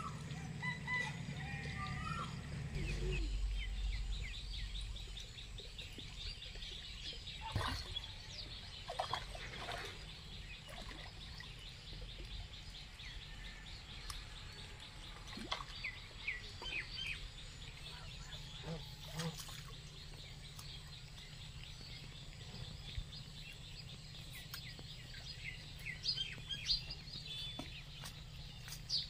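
Birds calling and chirping over a low, steady background hum, with a fast ticking trill for several seconds in the first part and a few short knocks.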